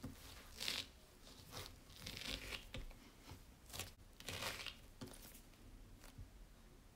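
Hands kneading a soft, crumbly flour-and-butter dough on a silicone baking mat: faint squishing and rustling scrapes in short bursts about every half second to second, thinning out near the end as the dough is gathered into a ball.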